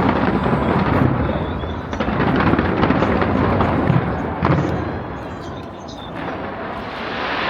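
Fireworks display going off in rapid succession: many overlapping bangs and crackles over a continuous low rumble, easing briefly a little past the middle before building again.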